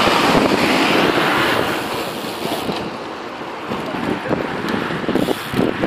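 Wind rushing over the microphone of a camera carried on a moving bicycle, strongest for the first second and a half, then easing to a steadier, quieter rush.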